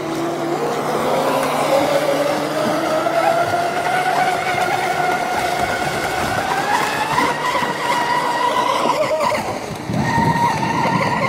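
Twin brushless electric motors of a radio-controlled catamaran whining at speed as it runs across the water, with the hiss of its spray. The whine climbs in pitch over the first few seconds and then holds high, dips briefly near the end and climbs back.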